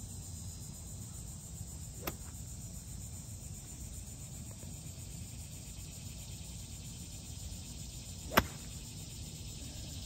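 A golf club striking a golf ball once about eight seconds in, a single sharp crack, with a fainter click about two seconds in. A steady hum of insects runs underneath.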